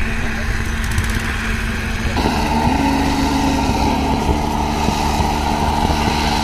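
An engine running steadily, its note changing about two seconds in and then holding steady.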